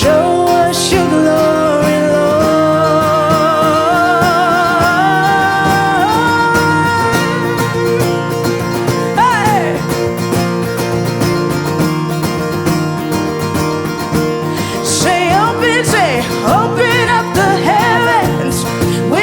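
Worship song on strummed acoustic guitar, with a voice singing long held wordless notes that waver and step upward over the first several seconds, then further sung phrases near the end.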